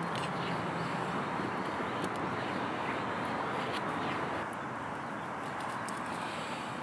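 Steady rushing of a flowing river, with a few faint clicks over it.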